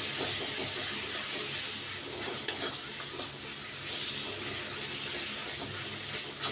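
Masala paste of onion, ginger, garlic and ground spices sizzling in oil in a kadai while a spatula stirs and scrapes it around the pan, with a few sharper scrapes about two seconds in. The masala is at the end of its frying (koshano), with the oil starting to separate at the edges.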